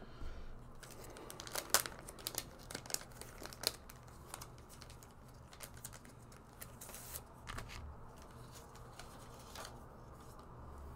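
Clear plastic product packaging crinkling and rustling as it is opened and handled, with irregular sharp crackles, busiest in the first few seconds.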